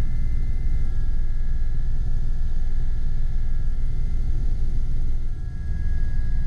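Aérospatiale Gazelle SA341C helicopter in flight, heard from inside the cabin: the Turbomeca Astazou turboshaft and rotors make a steady deep rumble under a steady high whine. The level dips briefly about five seconds in.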